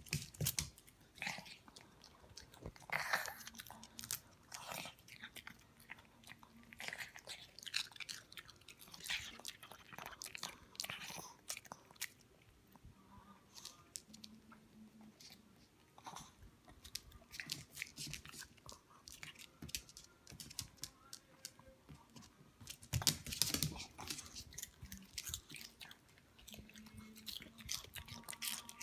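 Crunchy food being chewed and bitten: irregular crunches with short pauses between them.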